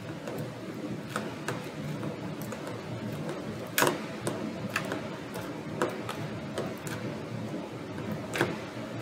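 Orange borax-activated slime being pulled and pressed by hand in a clear plastic tub, giving irregular sharp clicks and pops, the loudest about four seconds in.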